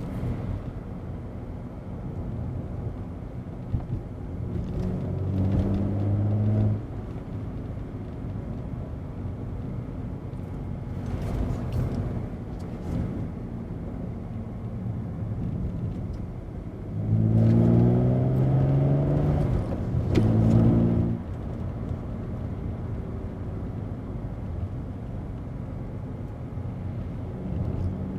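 BMW E90 330i's N52 3.0-litre straight-six with a BMW Performance rear silencer and modified, straight-piped middle section, heard from inside the cabin. It drones steadily while cruising, rises in pitch under acceleration about five seconds in, and pulls hard again past the middle, with a brief drop for a gear change before settling back to a steady drone.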